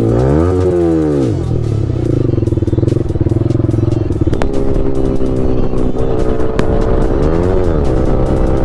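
Motorcycle engine running on the move, its pitch rising and falling with throttle and gear changes near the start and again near the end, with a steadier stretch between.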